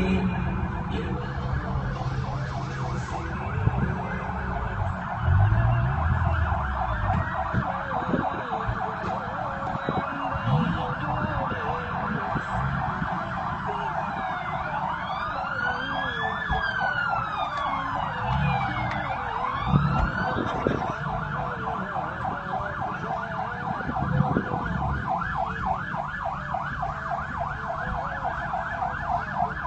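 Police car sirens in rapid yelp throughout, with a slower wailing tone that rises and falls for several seconds about halfway through, over traffic rumble.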